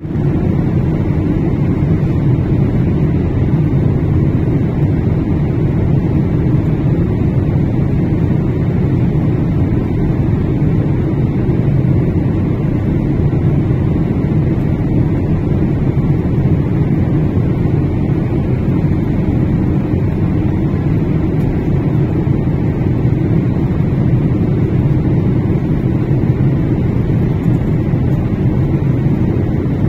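Jet airliner cabin noise at cruise altitude: a steady, loud, low rumble of engines and airflow that does not change.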